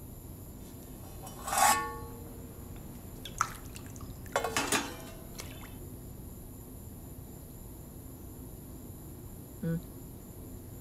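Steel kitchen vessels clinking a few times, about a second and a half in and again around four and a half seconds, with water being poured into a steel tumbler.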